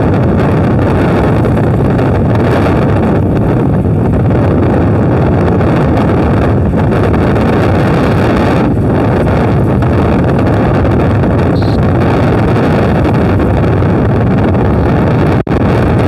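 Steady, loud rumble of a fishing boat's engine, with wind buffeting the microphone.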